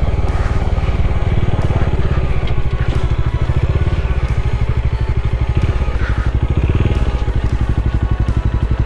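Motorcycle engine running steadily, its firing pulses heard as an even low beat throughout.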